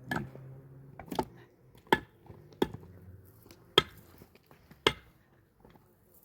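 Six sharp blows struck on wood, about a second apart and unevenly spaced, stopping about five seconds in.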